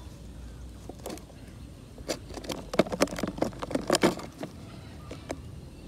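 Thin clear plastic cup clicking and crackling as a frog is put in and moves about inside it: a quick irregular run of sharp clicks and knocks, busiest in the middle.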